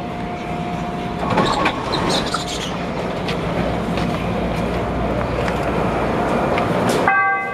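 Interior sound of a 1992 Morrison-Knudsen 3200-series rapid transit car running: a steady rumble with repeated clicks of the wheels over rail joints and a steady whine. Near the end an electronic chime starts.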